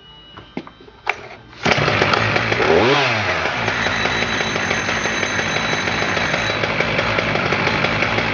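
Husqvarna 575 XP chainsaw's 73 cc X-Torque two-stroke engine starting: after a couple of clicks it catches about one and a half seconds in. Its pitch dips and recovers about a second later, then it runs steadily.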